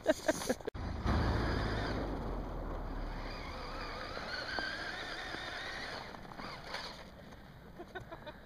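RC snowmobile's brushed electric motor and drive track running: a wavering whine over a low rumble that fades away after about five seconds, with a few clicks just before it starts.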